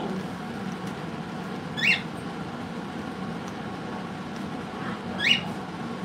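Yellow-headed Amazon parrot giving two short, rising squeaks, about three seconds apart, over a steady low background hum.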